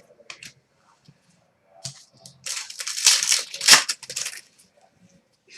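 Wrapper of a hockey trading-card pack being torn open and crinkled: a crackly tearing burst starting about two and a half seconds in and lasting under two seconds, after a few faint handling ticks.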